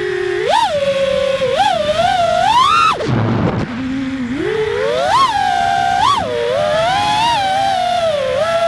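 Emax 2205 2600kv brushless motors of an FPV drone whining in flight, the pitch jumping up and falling back with each throttle punch. About three seconds in the throttle is cut and the whine drops low, then climbs back up over the next two seconds.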